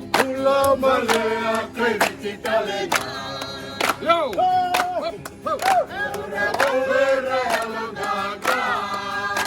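A group of voices singing a welcome song in harmony, with a steady beat of sharp strokes about twice a second.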